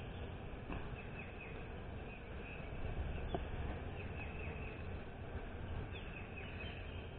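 Steady low buzz of a honeybee colony over an open hive box, with a sharp wooden knock about three seconds in as a frame is set back into the box. Short falling bird chirps come and go several times in the background.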